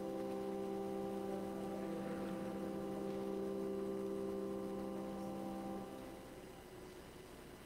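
Organ holding a sustained chord of several steady notes, released about six seconds in and dying away.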